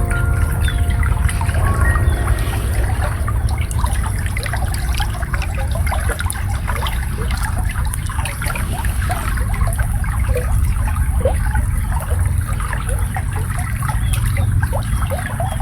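Shallow water babbling and trickling as it flows through a rice field, a dense run of small bubbling sounds over a steady low rumble. The last held notes of slow, soft music die away in the first second or two.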